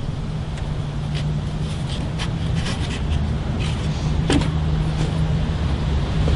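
Steady low mechanical hum, like a motor or engine running, with scattered light taps and clicks over it.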